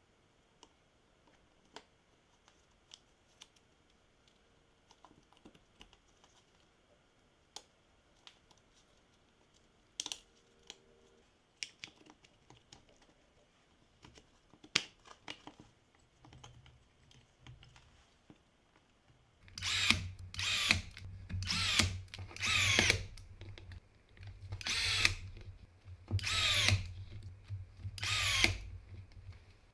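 Light clicks of plastic housing parts being fitted together, then, from about two-thirds of the way in, a cordless drill-driver running in a series of short bursts, spinning up and down as it drives screws into a plastic drill housing.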